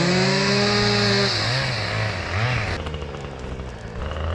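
Gasoline chainsaw running at high revs, its engine note dropping about a second in with a couple of brief revs before it falls back to a low idle about three seconds in.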